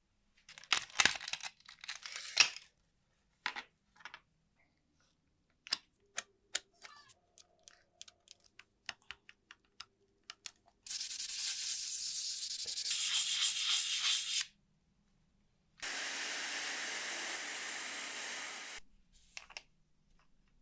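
Small metal parts clicking and rattling being handled, then two long, steady hisses of pressurised spray, each about three seconds, one about eleven seconds in and one about sixteen seconds in.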